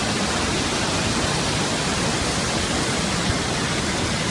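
Muddy flash-flood torrent rushing through a channel and pouring over walls: a steady, unbroken rush of water.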